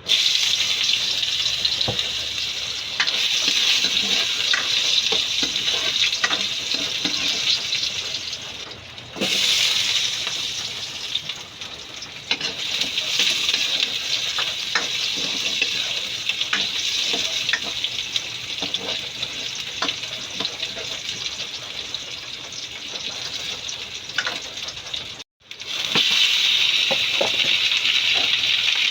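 Food sizzling in a hot pot, a steady hiss with scattered clicks from a utensil stirring. The sound breaks off briefly twice.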